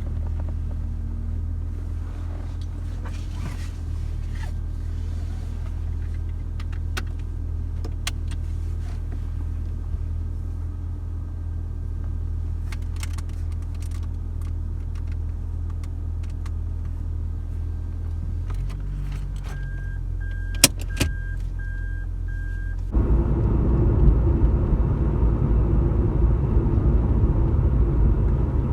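Car engine running steadily, with a few light clicks. About 20 seconds in comes a short run of evenly spaced beeps and two sharp knocks, then the engine sound jumps suddenly louder and rougher.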